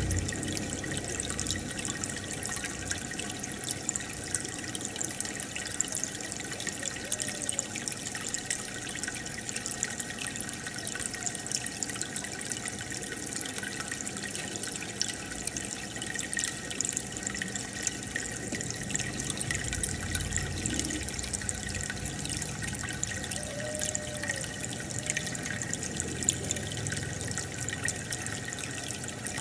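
Aquarium water bubbling and trickling steadily, with air bubbles streaming up from an air line.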